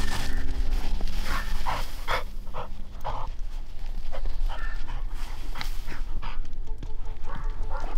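Black Labrador panting close by in quick irregular breaths, over a steady low rumble.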